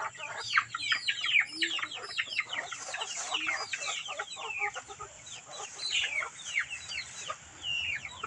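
A flock of chickens calling around feed being scattered: many quick, high, overlapping calls, each falling in pitch, several a second.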